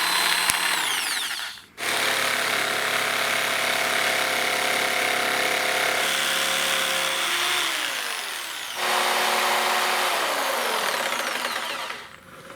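Hyper Tough 3.5-amp variable-speed electric jigsaw running, switched off and back on several times: it winds down about a second and a half in and starts again at once, its pitch drops partway through, it stops and restarts again, and it winds down near the end.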